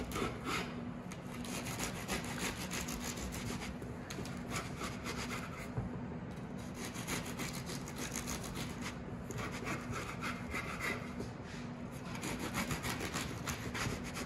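Serrated knife sawing back and forth through a baked apple strudel, its thin, crisp pastry crust crackling and shattering in rapid, repeated rasping strokes as the blade works down to the wooden cutting board.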